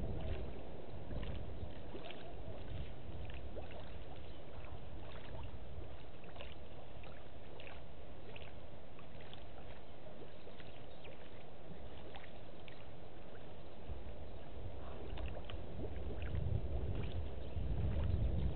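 Outdoor bush ambience: wind rumbling on the microphone, swelling again near the end, with many short high ticks and chirps scattered throughout.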